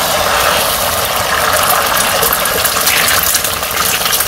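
Beaten duck eggs with sliced onion hitting hot oil in a wok: a loud, steady sizzle as the egg starts to fry, with crackling pops coming in near the end.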